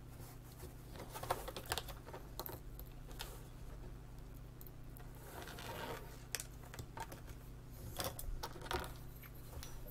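Scattered light clicks and ticks of small glass, metal and plastic parts being handled: a small viewfinder CRT slid out of its deflection coil assembly and set down on a work mat, with a brief rustle near the middle. A faint steady low hum sits under it all.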